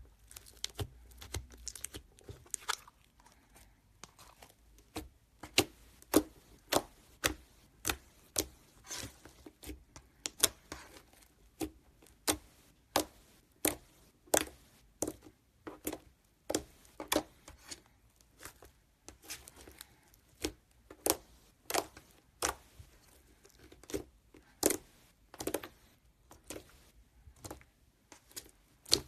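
Thick grey slime being poked and pressed with fingers, giving sharp wet pops and clicks as air caught in it bursts, irregular, about one or two a second.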